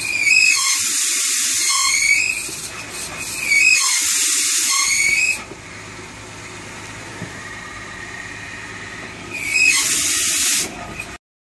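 High-pitched squeal with a hiss from the clutch release (throwout) bearing of a 2007 Jeep Wrangler Unlimited with the NSG370 six-speed manual, coming in three spells of one to two seconds, the pitch wavering, as the clutch pedal is worked. It is the noise of a worn release bearing. The sound cuts off suddenly near the end.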